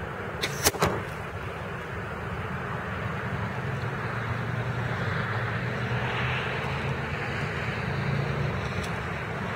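Parker Tornado F4 crossbow firing: a sharp snap and a second crack close behind it, about half a second in. Under it, a steady hum of distant engine noise swells a little and then eases.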